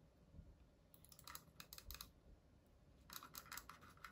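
Faint clicks and scrapes of batteries being pressed into the plastic battery compartment of an HP Pavilion 800 wireless mouse, in two short clusters, about a second in and again near the end.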